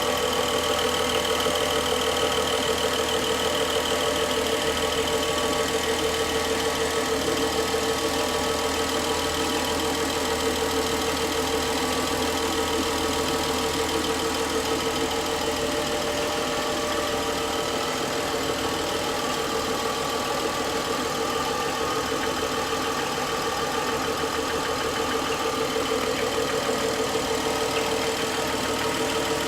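BMW N55 turbocharged straight-six idling steadily with a knock in it. The knock shows up a few minutes after a cold start, and replacing the VANOS units has not cured it.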